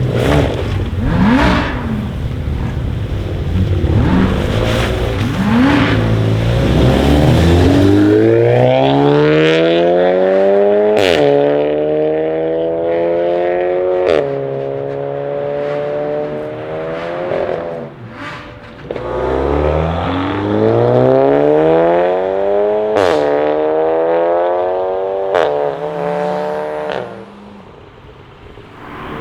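Seat Leon Cupra ST 5F's turbocharged 2.0-litre four-cylinder with a custom exhaust, low rumble at first, then two hard accelerations. Each time the engine note climbs steadily, then drops suddenly at an upshift with a sharp crack from the exhaust. The sound fades away near the end.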